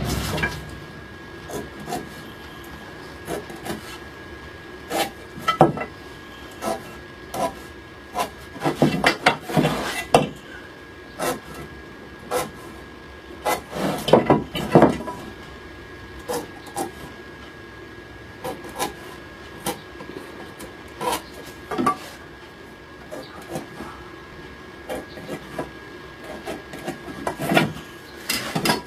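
Wooden frame stock and marking tools being handled on a workbench: irregular light knocks and clicks, with a few longer scratching strokes of a pencil drawing layout lines on the wood.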